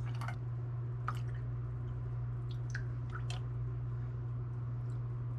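Small kitchen handling noises while milk tea is being made: a few light clicks, drips and soft squishes from cups, a milk carton and a plastic container, over a steady low hum.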